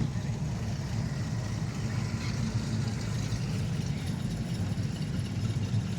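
Classic car engines idling and rolling in slowly, a steady low rumble.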